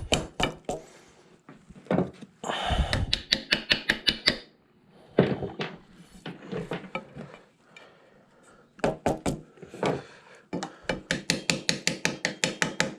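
Conduit fittings being worked onto the end of a metal pipe by hand: scattered clinks, then two fast runs of even clicks, about four or five a second, one run about three seconds in and another near the end.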